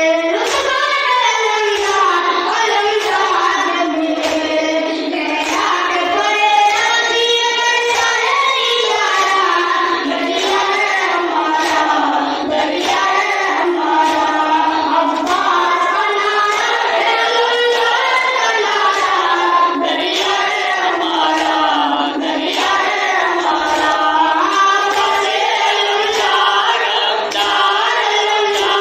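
A boy chanting a noha, a Shia lament for Abbas, into a microphone, with men's voices joining in and the hand strikes of matam (chest-beating) keeping time.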